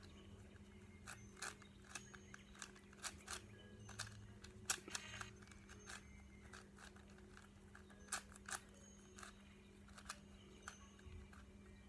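Faint, irregular plastic clicks and taps from handling and fitting a speed cube's plastic cube cover, over a steady low hum.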